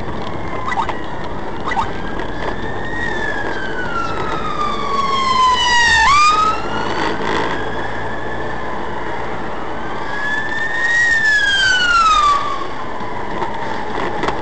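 An emergency vehicle siren wails over the drone of road and engine noise inside the vehicle. Its pitch climbs and falls in long sweeps, jumps back up about six seconds in, and makes another sweep near the end.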